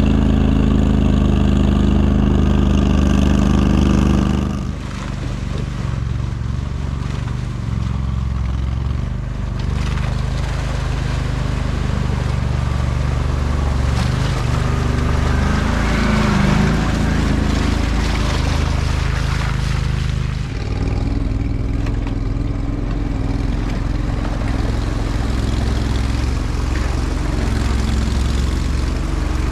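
Argo amphibious ATV engine running steadily under load as it drives through mud and water, on a track held together with a rope repair. The engine sound changes abruptly twice, about four and about twenty seconds in.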